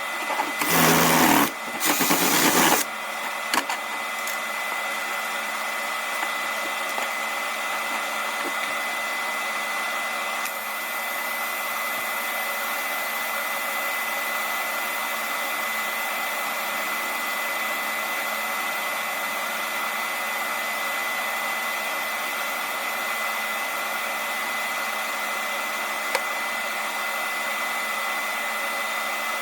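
Welding arc hissing steadily and evenly, with a faint constant high tone, after two short louder bursts in the first few seconds.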